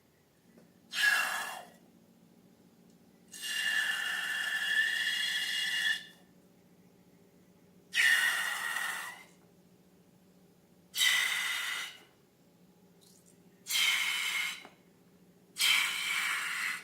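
Six bursts of air hissing out through a balloon's neck, each with a faint whistle; the second lasts nearly three seconds, the others about a second each.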